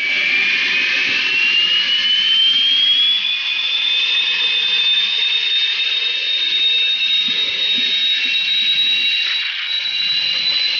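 Loud, steady cabin noise of a light propeller plane in flight, with a high whine that rises in pitch over the first few seconds and then holds steady.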